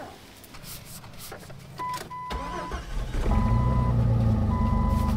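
Jeep Wrangler engine cranking and catching about two and a half seconds in, then running steadily. An electronic warning chime beeps over it about once every second and a half.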